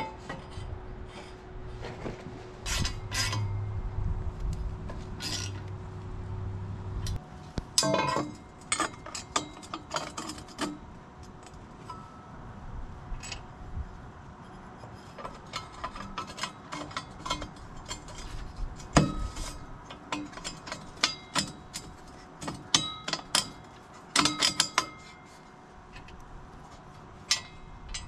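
Metal hand tools clinking, knocking and scraping on metal exhaust parts in irregular sharp hits, with a faint steady hum under them for the first several seconds.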